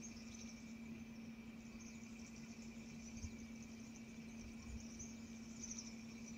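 Very faint bush ambience: a steady high insect chirring, with a low steady hum beneath it.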